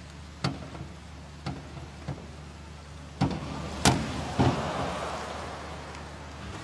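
Diving springboard knocking as the diver bounces on it, three sharp knocks about a second apart, then louder knocks and the body hitting the water about four seconds in, followed by a rushing splash that fades over about two seconds.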